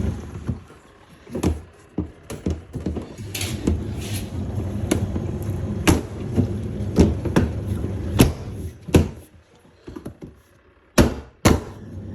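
A steady low machine hum cuts off, followed by a series of irregular sharp knocks and clatters of handling and setting things down, with two loud knocks near the end.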